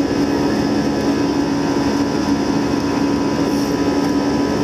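Airbus A320 jet engines running with a steady drone and a held hum, neither rising nor falling.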